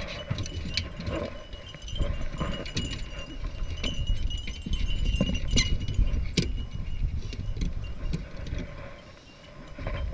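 Irregular metallic jingling and clinking from dog collar hardware and the latches of a wooden dog box as hounds are loaded into it, over a low rumble of handling noise.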